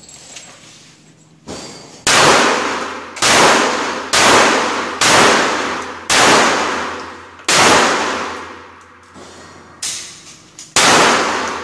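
Compact semi-automatic pistol fired seven times, each sharp shot ringing on with a long echo in the enclosed range. The shots come about a second apart, with a longer pause before the last.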